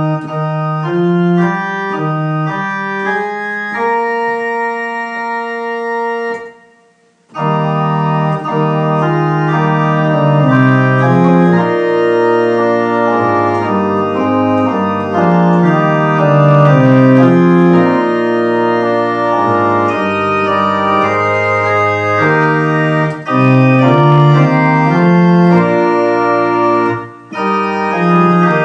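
Organ music: slow, sustained chords held steadily. It breaks off briefly about six seconds in, then resumes fuller, with a deep bass line.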